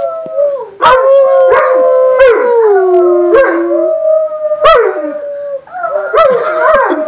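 Mastiff dogs and children howling together: several long howls held at once and overlapping, one sliding down in pitch about three seconds in, broken by sharp rising-and-falling yelps every second or two.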